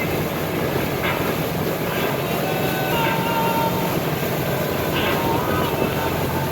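Motorboat under way: a steady engine drone with rushing water and wind noise.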